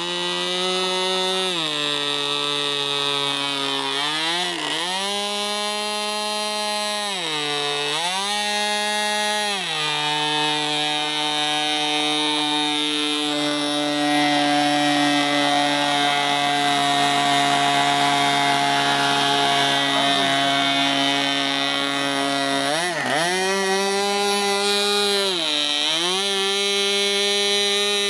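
MVVS model aircraft engine in a radio-controlled Messerschmitt Bf 109 running at high revs. The throttle is pulled back and opened up again three times in the first ten seconds and twice more near the end, with the engine held steady at full speed in between.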